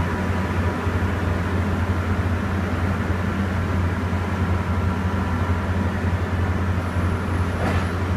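ED79 electric locomotive humming steadily close by: a constant low drone with a faint steady whine above it. Near the end there is a brief high tone and a click.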